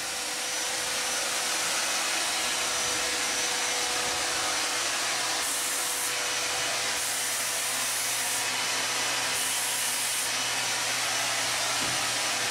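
Steady machine noise: an even rushing hiss with a low hum and a thin steady whine running through it.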